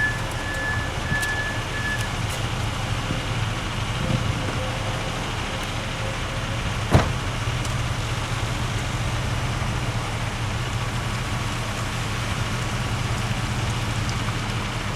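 Truck engine running steadily at low speed, with a single sharp click about seven seconds in.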